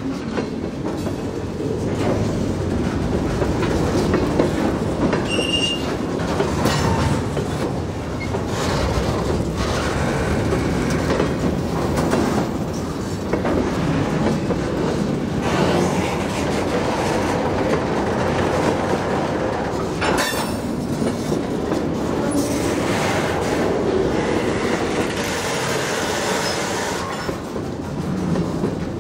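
Freight train of covered hopper cars rolling past: a steady loud rumble of steel wheels on rail with repeated clicks over the rail joints, and a brief wheel squeal about five seconds in.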